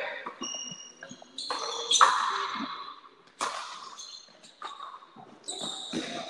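Frontenis rally: the ball cracks off rackets and the fronton wall in about five sharp hits, roughly a second apart, the loudest about two seconds in. Each hit rings out in the court's echo.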